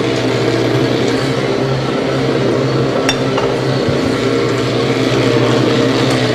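Steady hum of commercial kitchen machinery, with a sharp clink of a utensil against a stainless-steel bowl about three seconds in.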